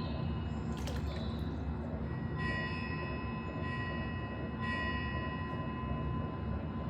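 Bell-like metal chimes ringing out several times, each held tone fading away, over a steady low rumbling noise. A sharp click sounds about a second in.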